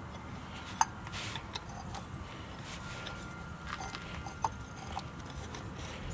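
A few scattered light clicks and knocks of hand work on a brake caliper as the piston is pushed back into its bore with the old brake pad, over a low steady background.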